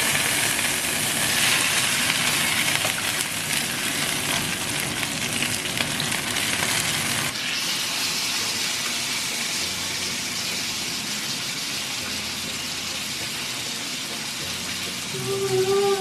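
Meat frying in a pan, a steady sizzle of fat and oil, with an abrupt change in its sound about seven seconds in.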